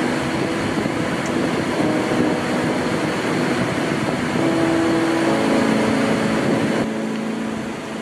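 Mountain waterfall rushing in a steady roar of falling water, with faint background music underneath; it gets a little quieter near the end.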